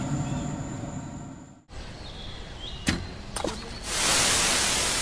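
Quiet outdoor background that fades out, a couple of sharp clicks, then about four seconds in a loud rushing whoosh swells up and slowly dies away, an outro sound effect.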